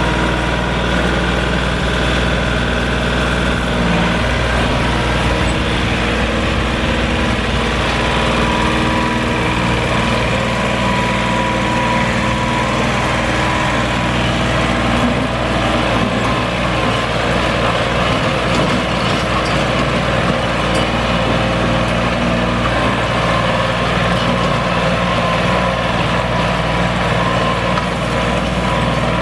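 Kioti DK4510 compact tractor's diesel engine running steadily under load while the tractor works through mud and drags its rear box blade over dirt.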